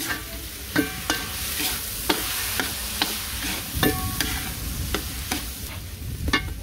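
Washed white rice sizzling as it parches in hot melted butter in a karahi, stirred with a spoon that scrapes and knocks against the pot about every half second, the first stage of cook-up rice before the seasoning goes in.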